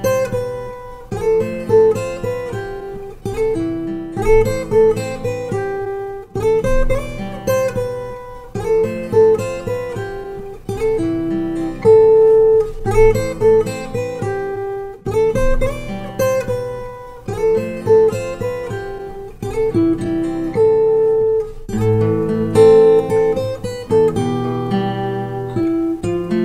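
Background music: an acoustic guitar strumming chords in a steady, repeating pattern.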